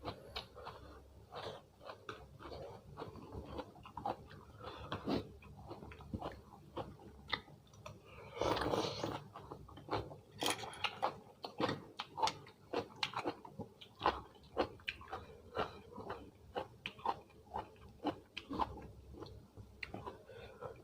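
A person chewing and biting food close to the microphone, with irregular wet mouth clicks and crunches. A longer, louder burst comes about nine seconds in.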